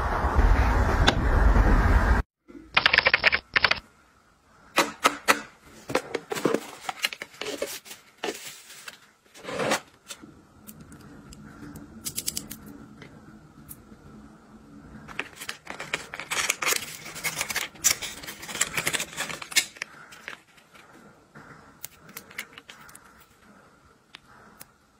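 Fingernails and fingers handling cosmetic containers and packaging, an irregular run of sharp clicks and taps on hard plastic and glass with softer rubbing in between. A louder rush of noise in the first two seconds cuts off abruptly.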